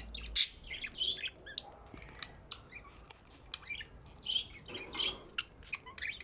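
Budgerigars chirping and chattering in short, scattered calls.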